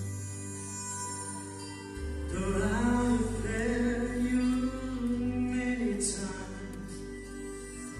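A man singing into a handheld microphone over steady instrumental accompaniment. His voice comes in about two seconds in with long held notes, then eases off near the end.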